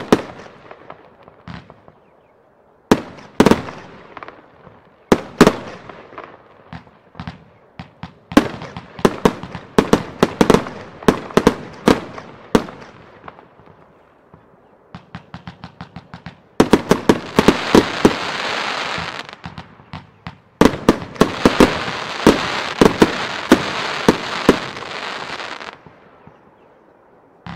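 Röder Blutonium compound firework cake firing, heard from about 85 m: a string of mortar shots and star-shell bursts, each a sharp bang with a trailing echo. There is a brief lull about halfway, then a quick run of rapid shots, followed by two long stretches of dense continuous crackle with bangs on top, from about 17 s to 26 s.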